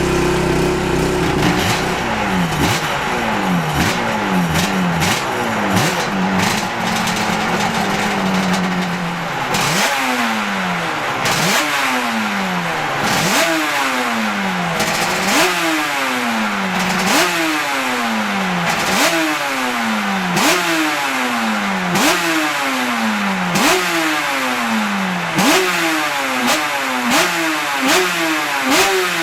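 Honda Grand Prix racing motorcycle engine revved over and over: each rev jumps up sharply and falls away slowly, roughly every second and a half, with sharp exhaust cracks throughout.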